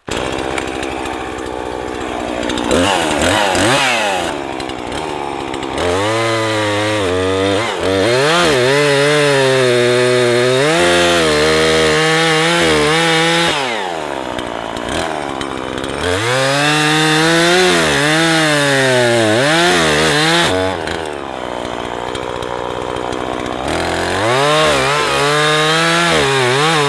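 Husqvarna 340e two-stroke chainsaw cutting the felling notch into a chestnut tree trunk. It goes to full throttle three times, the pitch wavering and sagging under load as the chain bites, and drops back to a lower idle between cuts.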